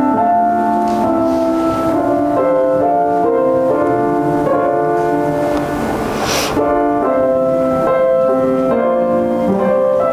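Slow, quiet piano music: held notes and chords that change about once a second.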